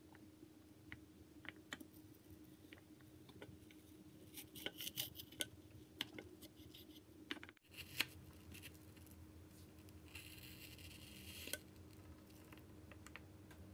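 A tiny knife cutting a peeled wedge of fruit on a miniature wooden cutting board: faint scattered clicks and taps of the blade and fruit, with the sharpest click about eight seconds in and a short scraping rustle a couple of seconds later.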